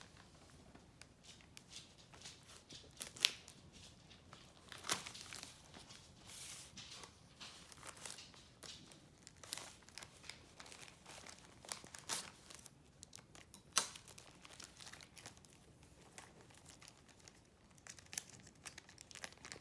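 A package being opened by hand: packaging crinkling and tearing, with scattered sharp snaps and clicks, the strongest about 3, 5 and 14 seconds in.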